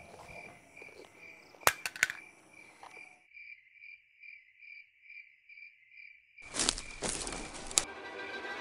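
Crickets chirping in a steady pulse, about three chirps a second. About two seconds in there are a few sharp clicks, and a little later every other background sound drops away, leaving only the chirping. Near the end a sudden loud rushing noise takes over, cuts off with a sharp click, and music begins.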